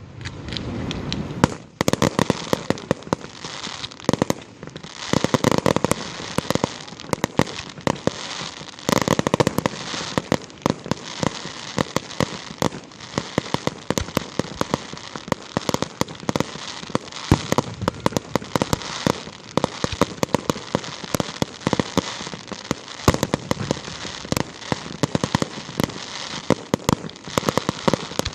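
Aerial fireworks display going off without pause: a dense run of many sharp pops and crackles, with fuller bursts swelling in now and then.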